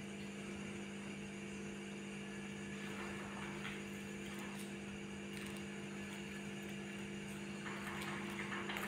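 A steady low hum, a few fixed tones from a running motor or appliance, with a few faint light scuffs.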